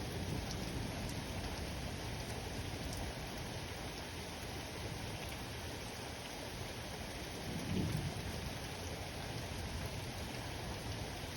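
Steady rain falling, with low rumbling thunder underneath and one short, louder low rumble about two-thirds of the way through.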